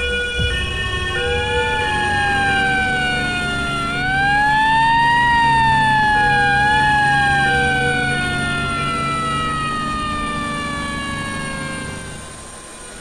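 Ambulance siren wailing, rising and falling slowly in pitch, then sliding gradually lower and fading near the end.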